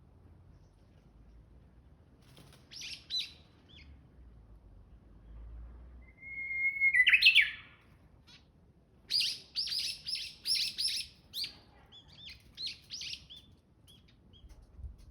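Japanese bush warbler singing. About six seconds in comes its loudest phrase, a long held whistle that breaks into the quick 'hokekyo' flourish. Then a fast run of sharp repeated high notes follows, and scattered short calls to the end.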